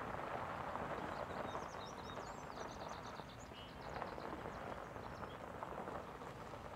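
Pickup truck towing a boat trailer rolling slowly over gravel, its tyres crunching and popping on the stones. Small birds chirp briefly high above it between about one and a half and four seconds in.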